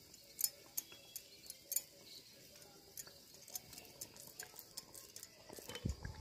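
Faint, scattered crackling clicks of battered egg balls deep-frying slowly in a kadai of oil on a low flame, with soft handling thumps near the end.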